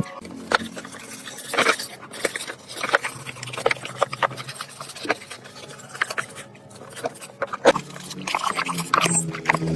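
Hand-tool work on motorbike parts in a workshop: irregular taps, clicks and scrapes, with a faint steady hum beneath that grows stronger near the end.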